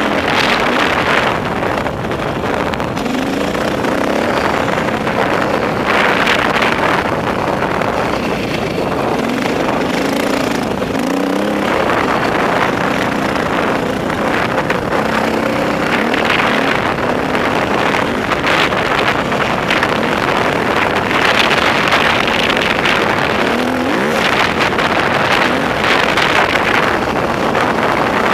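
Dirt bike engine running under load while riding, its pitch repeatedly rising and falling as the throttle is worked and gears change, over a steady rush of noise.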